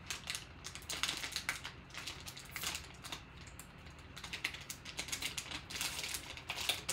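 Foil trading-card pack wrapper crinkling and tearing as it is pulled open by hand, a run of quick, irregular crackles.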